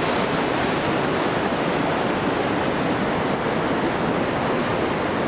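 Steady rushing of a swollen, muddy river in flood, churning over boulders and rocks.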